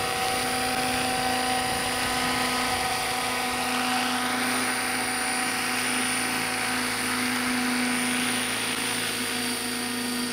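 Radio-controlled scale model Bell 206 JetRanger helicopter hovering low over the grass: steady rotor noise with a high, even whine.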